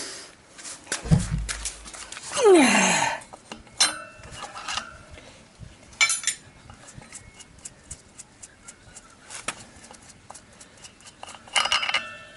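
Metal clinks and light knocks of tools and parts while a Honda 750's front wheel is taken off and its axle shaft pulled. There is a dull thump about a second in and a short sound falling in pitch a little later.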